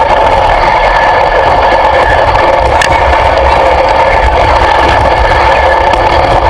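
An engine running steadily and loudly, with an even hum and a low rumble underneath that do not change.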